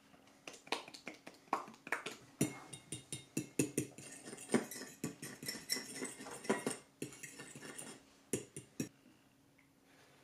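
Metal fork beating eggs and hot sauce in a small ceramic bowl: quick, irregular clinks and taps of the fork against the bowl, several a second, stopping about nine seconds in.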